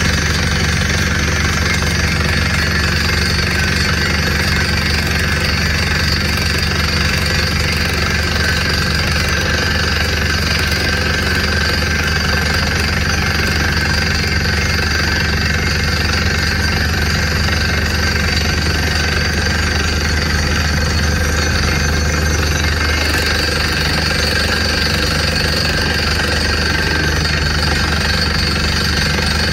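Truck-mounted DTH borewell rig drilling: the down-the-hole air hammer pounds rapidly and steadily over the running engines and compressor, with compressed air blowing cuttings and dust out of the hole.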